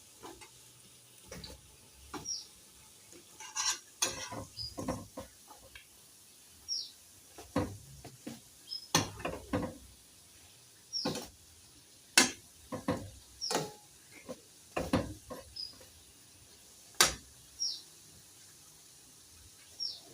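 A cooking utensil knocking and scraping against a frying pan in irregular clicks while potatoes are turned, over a faint sizzle of frying. Short falling bird chirps repeat every second or two.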